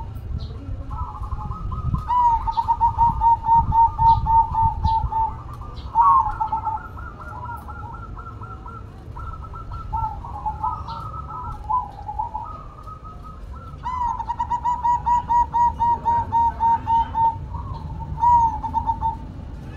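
Zebra doves (perkutut) cooing in rapid staccato runs of about five notes a second, two long runs starting about two seconds in and about fourteen seconds in, with shorter broken bursts between.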